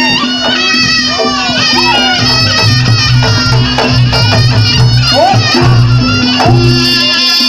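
Reog Ponorogo gamelan music: a shrill reed pipe (slompret) plays a melody over a steady drone, with a pulsing drum and gong beat underneath.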